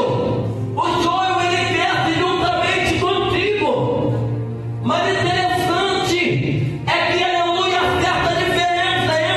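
Gospel hymn sung by several voices together over a sustained low accompaniment.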